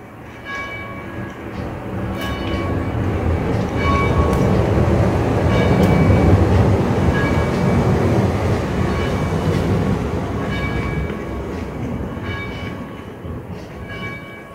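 A rumble from a passing vehicle builds for about six seconds and then fades away. Background music with a repeating chime-like figure plays under it.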